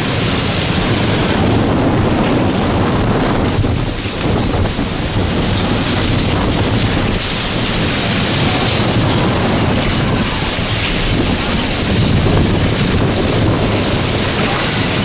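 Category 4 hurricane eyewall winds: a loud, steady rush of wind carrying driving rain, easing briefly about four seconds in.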